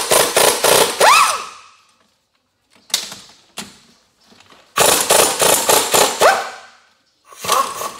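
Cordless impact wrench hammering in rapid bursts as it breaks loose the 14 mm cylinder head bolts on a Honda TRX300 engine. There is a long burst at the start, two short blips, a longer burst a little past the middle and a short one near the end. The motor's whine slides in pitch as each burst ends.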